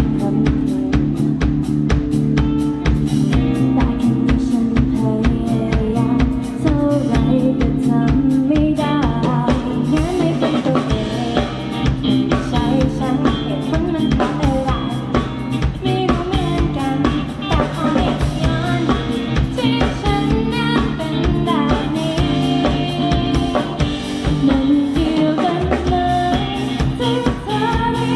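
Live pop-rock band playing through a PA: a drum kit keeps a steady beat under electric bass, guitar and keyboards, with female voices singing over it.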